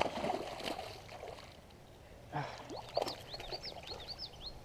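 Water splashing and sloshing as a hooked bass is played at the surface, then from about two and a half seconds in a bird's run of quick high chirps, about four a second.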